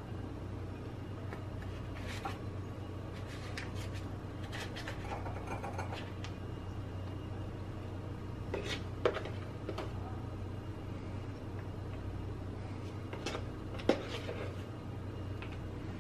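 A metal spoon scooping thick whipped instant-coffee foam into a silicone piping bag: soft scrapes with a few short clicks of the spoon against the bag and bowl, over a steady low hum.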